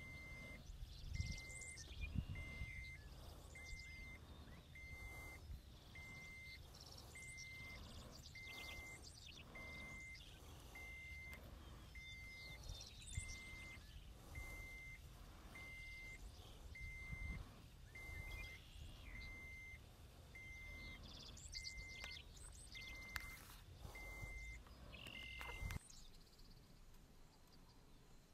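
A short, single-pitched electronic beep repeating about once a second over a low rumble, with birds chirping now and then. The beeping and rumble cut off abruptly near the end.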